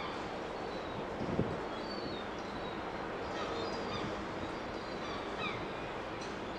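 Steady outdoor background rumble, with faint high bird chirps scattered through the middle and a single soft thump about a second and a half in.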